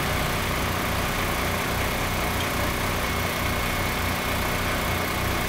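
Fire engine's motor running steadily at idle, a continuous low rumble with a faint steady high whine over it.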